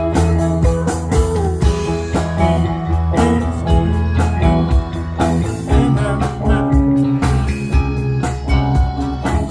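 A band playing guitar over bass with a steady beat.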